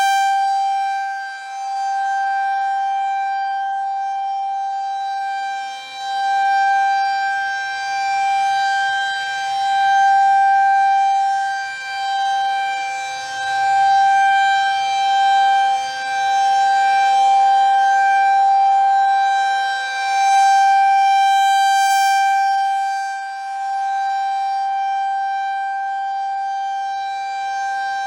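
Federal Signal 2001 tornado siren sounding a steady single-pitch tone during its test, loud, rising and falling in loudness every few seconds as its rotating head sweeps round.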